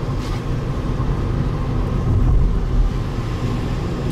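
Car cabin noise while driving: a steady low engine hum and road rumble heard from inside the car.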